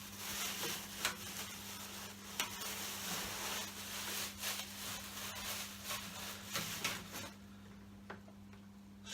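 Packaging rustling and crinkling as the dust extractor's blower unit is unwrapped, with scattered sharp clicks. It stops about seven seconds in, leaving a faint steady low hum.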